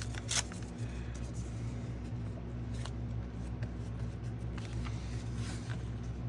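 Paper being torn and handled by hand: soft rustling with a few light crackles, over a steady low hum.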